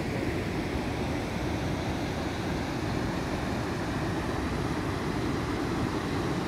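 Steady rushing of river water pouring over a low weir, an even noise with no breaks.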